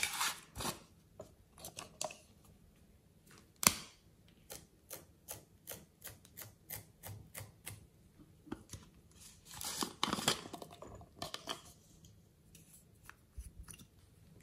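Small plastic clicks and taps from handling a pineapple-shaped plastic container and tools over a slime tray. One sharp click comes a little under four seconds in, then a run of light, evenly spaced taps about two a second, and a short scraping rustle around ten seconds in.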